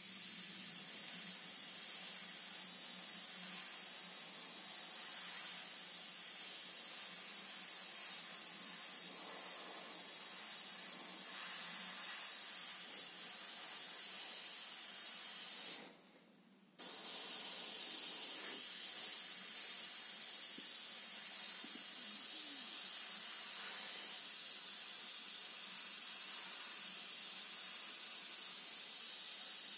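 Gravity-feed airbrush spraying paint in a steady hiss, which stops for about a second roughly halfway through and then resumes.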